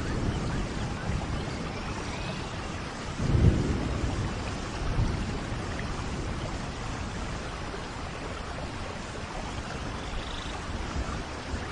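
Steady tropical rain falling, with a low rumble of thunder swelling about three seconds in and a few faint bird chirps near the end.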